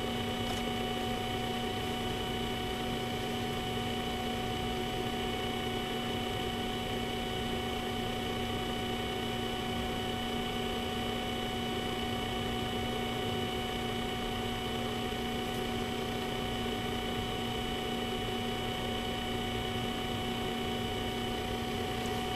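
Steady electrical hum and hiss, several constant tones held over an even noise floor without any change.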